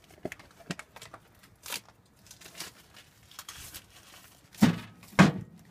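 Rustling and scattered light clicks of things being handled, with two louder knocks about half a second apart near the end.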